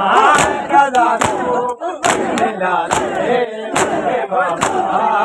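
Crowd of men doing matam, beating their chests in unison with a sharp slap a little more than once a second, over many male voices chanting and shouting.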